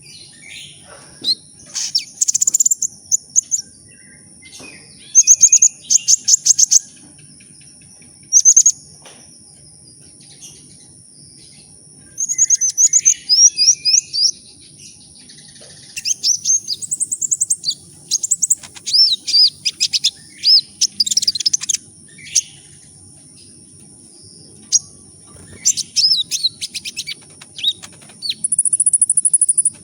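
Kolibri ninja (a sunbird) singing in quick bursts of rapid, high-pitched chirps and twittering trills, with short pauses between phrases. A faint steady high tone runs underneath.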